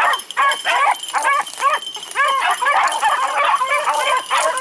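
A pack of beagles baying in chorus, many overlapping rising-and-falling calls several a second without a break, as the hounds run a rabbit's track.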